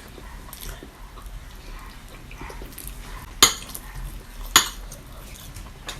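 Cutlery clinking against dishes twice, about a second apart, during a meal, over a faint low hum.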